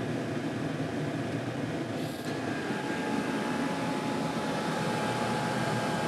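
Diesel heater running steadily: a constant mechanical whir from its fans and pumps. A faint thin whine joins in about two and a half seconds in.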